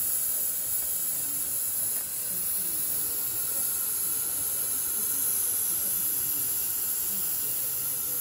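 Steady hiss of steam from a 5-inch gauge live-steam miniature locomotive, a model of the Hunslet quarry engine Alice, with no changes or chuffs.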